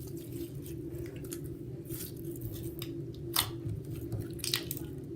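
Slime being stretched and pressed by hand, giving irregular small sticky clicks and pops, with a sharper one about three and a half seconds in, over a steady low hum.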